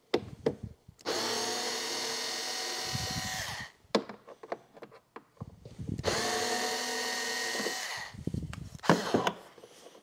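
Small cordless electric screwdriver backing screws out of a plastic trunk-lid liner: two steady runs of the motor, about two and a half and two seconds long, each spinning up at the start, with clicks and taps of handling the tool and screws between them.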